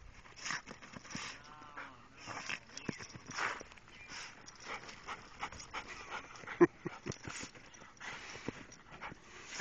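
Parson Russell Terrier whining and snuffling, excited at a hidden critter, among soft rustles, with one sharp snap about six and a half seconds in.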